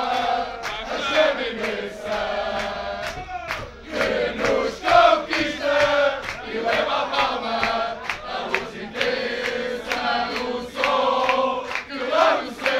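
A crowd of Benfica football supporters chanting a song in unison, with rhythmic hand claps.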